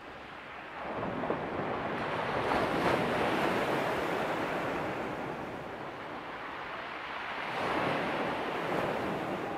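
Sea waves washing in on the shore, a steady rushing wash that builds about a second in and surges again near the end.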